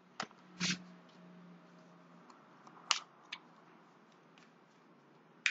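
Oracle cards being handled: soft rustles and a few sharp clicks, spread unevenly, as the cards are picked up and set down.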